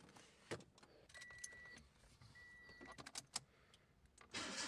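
Car keys clicking and jangling, with two steady electronic beeps in the middle. Near the end the Toyota's engine cranks and starts.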